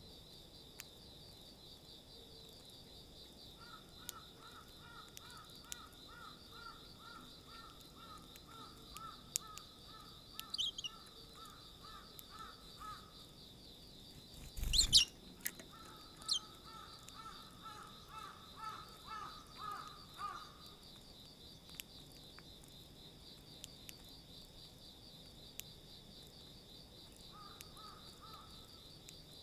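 Eurasian tree sparrows at a plastic seed tray: faint scattered ticks, a few short chirps, and about halfway through the loudest sound, a sharp chirp with a thump. Under it a steady pulsing high insect trill runs throughout, and a lower pulsed trill comes and goes.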